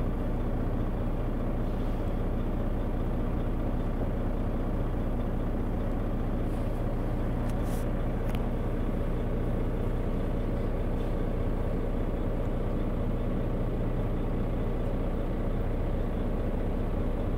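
Semi truck's diesel engine idling steadily, a constant low hum heard from inside the cab.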